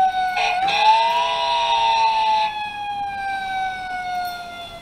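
Electronic fire-engine siren sound effect from a Fisher-Price Mickey Mouse Clubhouse Save the Day Fire Truck toy, set off by its try-me button: one wailing tone that rises just after a second in, then falls slowly. A harsher, noisier layer plays over the first couple of seconds.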